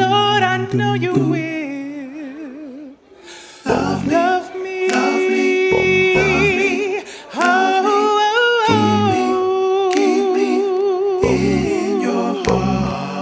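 A man singing solo into a microphone, with long notes held with vibrato and quick melodic runs. The voice fades almost to nothing about three seconds in, then comes back strongly.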